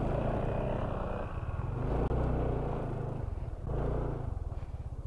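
Motor scooter engine running at low speed while the scooter is ridden slowly into a parking spot, its note dipping briefly a little past three seconds in.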